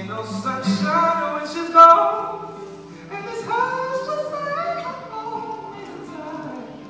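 Male voice singing long, sliding melodic runs into a microphone over a softly played acoustic guitar, loudest just before two seconds in.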